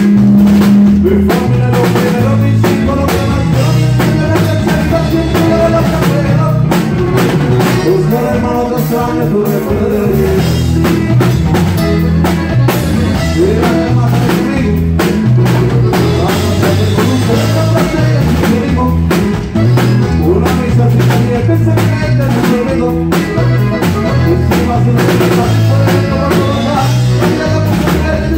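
A live band playing through a PA: drum kit, electric bass and twelve-string guitars, with a steady repeating bass line and drum beat.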